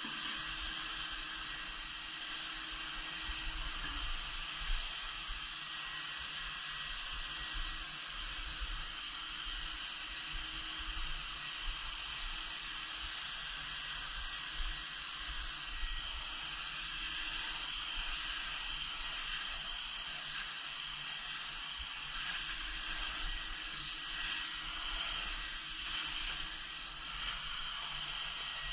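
HVLP spray gun spraying Plasti Dip: a steady hiss of air and atomised coating, with a faint steady hum underneath.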